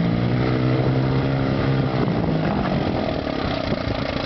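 1958 West Bend Muskie 8-horsepower two-stroke outboard motor running in reverse gear, its steady note changing about two seconds in.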